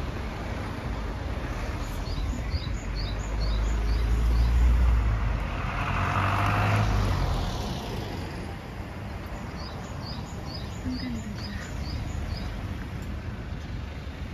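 A car passes on the road, its engine and tyre noise swelling to a peak about six to seven seconds in and then fading. A small bird sings two quick runs of short high notes, one early and one about ten seconds in.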